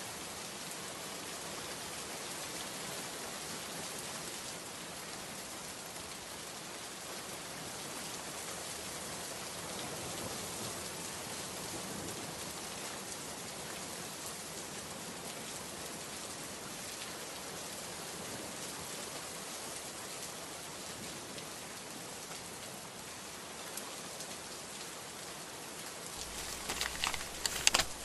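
Steady rain falling, an even hiss of many fine drops. Near the end a cluster of sharp, louder crackles breaks in.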